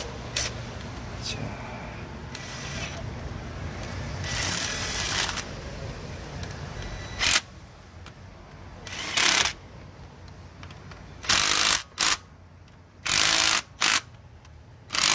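Cordless drill/driver spinning a socket in about six short bursts in the second half, running down the bolts of a newly fitted thermostat housing.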